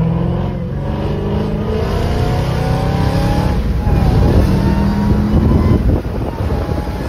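Dodge Hellcat's supercharged 6.2-litre V8 heard from inside the cabin, accelerating hard: its note climbs steadily, drops briefly about halfway at a gear change, then climbs again, with a thin higher whine rising along with it over road noise.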